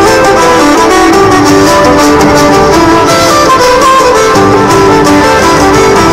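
Fast traditional Irish dance tune led by a fiddle, played loud and without a break, accompanying Irish dancers.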